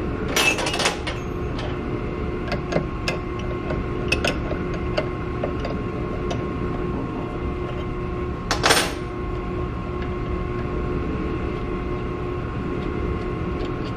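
Hand tool change on a Haas Desktop Mill: scattered clicks and ticks of the cutter and holder being handled, with two louder clattering knocks, one about half a second in and one near nine seconds, over a steady hum.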